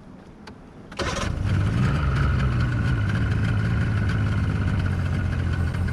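An engine starts up suddenly about a second in and then runs steadily, with a low drone and a thin steady whine above it.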